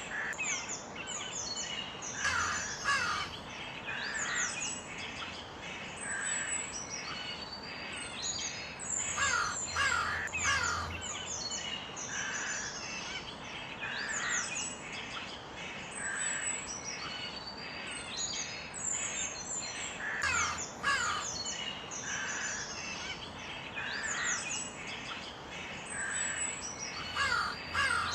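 Crows cawing in short clusters of calls over a steady chorus of smaller birds chirping.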